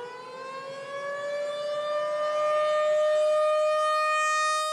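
Civil defense siren sounding a tornado warning. It winds up slowly in pitch over the first couple of seconds, then holds one steady wail that eases slightly near the end.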